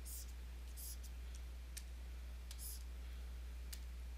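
Light scattered clicks, about seven in four seconds, with a few short hissy scrapes between them, from computer input while a drawing app's colour menu is worked. A steady low electrical hum runs underneath.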